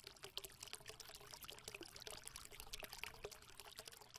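Faint liquid-pouring sound: a dense crackle of many tiny clicks, over a faint steady hum.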